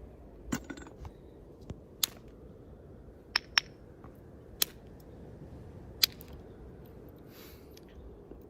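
Hornstone chert being knapped into a blade: sharp, clicking strikes of the knapping tool on the stone. There are about six strikes at irregular intervals, the two loudest close together about three and a half seconds in.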